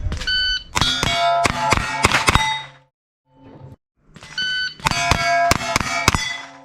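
Rapid gunshots, each followed by steel target plates ringing with clear, pitched tones. There are two quick runs of shots and hits, with a short silent gap between them.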